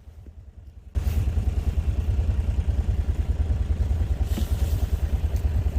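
A vehicle engine running steadily with an even low pulsing. It is faint at first, then abruptly becomes much louder and closer about a second in.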